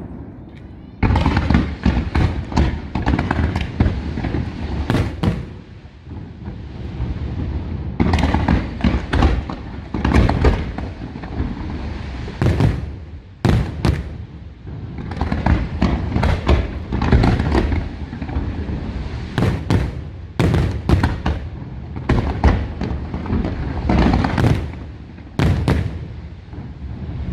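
Aerial fireworks display: rapid volleys of shell bursts and crackling bangs with a deep rumble, coming in waves with short lulls between them.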